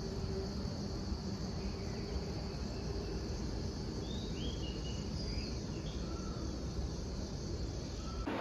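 Crickets chirring steadily, with a few short high chirps over them about halfway through.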